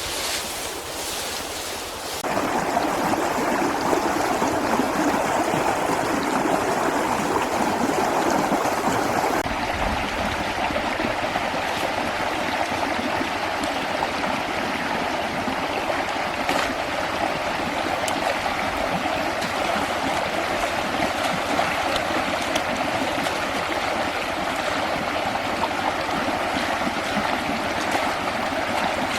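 Steady rush of running water, starting abruptly about two seconds in.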